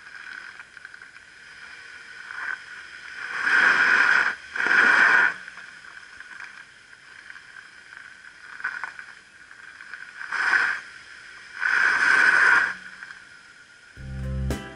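Front tyres of a front-wheel-drive Chevrolet Traverse spinning on a sandy gravel boat ramp under the load of a boat trailer, in four short spurts of spinning and scattering grit, two pairs a few seconds apart. Music comes in near the end.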